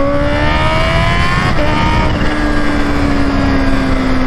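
Kawasaki Ninja H2's supercharged inline-four running under way: the engine note rises for about a second and a half, steps at a gear change, then slowly falls as the throttle eases. Heavy wind rush lies under it.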